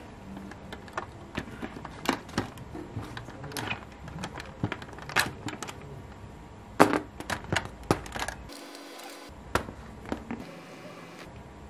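Irregular clicks and light knocks of a small diecast model car and its plastic wheels and tyres being handled and set down on a wooden tabletop. The loudest knock comes about seven seconds in.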